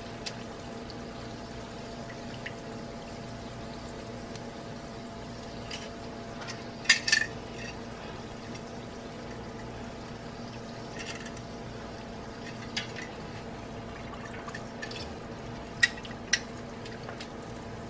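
Corn dogs sizzling steadily in a pot of hot frying oil, with a few sharp clicks of metal tongs against the stainless steel pot, the loudest about seven seconds in and two more near the end.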